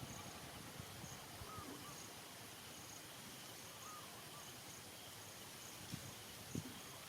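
Faint outdoor ambience: an insect chirping in short high pulses, a small bird giving a short call about every two and a half seconds, and a few soft knocks near the end.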